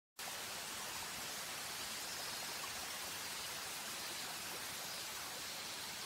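Steady rush of falling water from a waterfall, an even hiss.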